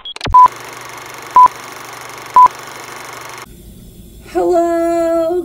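Three loud electronic beeps on one steady pitch, about a second apart, after a quick rising sweep. About four seconds in, a steady high whine with overtones starts up: water running at the sink, its faucet singing.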